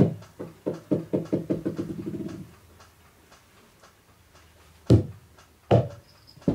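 Rubber super balls bouncing on a wooden floor: a run of bounces that come faster and faster until the ball settles about two and a half seconds in, then after a pause two loud single bounces near the end.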